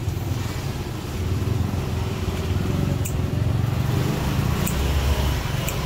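Street traffic: a motor vehicle engine running nearby with a steady low rumble, and a few faint clicks over it.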